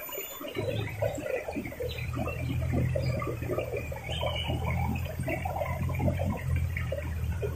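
Shallow rocky stream flowing and gurgling over stones, with a steady low rumble underneath that starts about half a second in.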